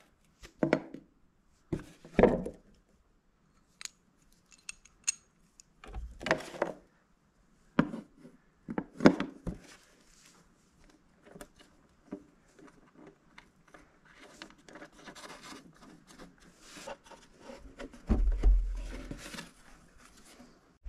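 A hand tool scraping, clinking and knocking on a washing-machine drum disc lying on wooden boards, in separate short strokes at first, then a longer run of scraping, with a heavier thump near the end.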